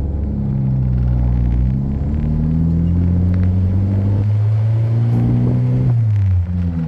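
Turbocharged Honda engine running while the car is driven, its note climbing slowly and then dropping quickly near the end.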